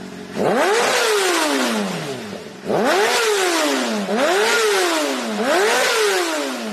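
Superbike engine sound with no speech: four times the pitch jumps up sharply and then slides down over one to two seconds, fading near the end.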